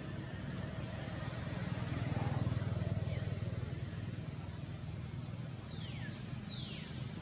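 Steady low drone of an engine running, with two short high calls that fall in pitch near the end.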